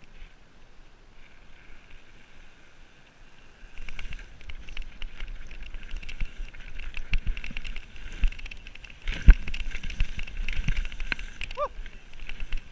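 Mountain bike riding fast down a rough dirt trail: tyres on dirt, with the chain and frame rattling and dull thuds as the bike hits bumps and roots. It starts quieter, then grows much louder about four seconds in as the trail gets rough, and the heaviest thud comes about nine seconds in.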